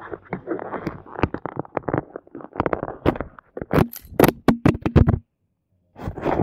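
Handling noise on a smartphone's microphone as the phone is moved and stowed: a dense run of scrapes, rubs and sharp clicks of fabric and fingers against the phone. The sound cuts out completely for a moment near the end, then the rubbing resumes.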